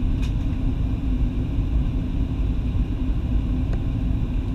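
Steady low rumble of a Boeing 737-800's CFM56-7B jet engines and rushing air, heard inside the cabin at a window seat in flight, with a faint click about a quarter second in.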